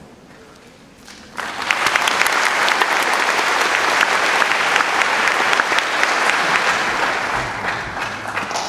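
Audience applauding, starting about a second and a half in and dying down near the end.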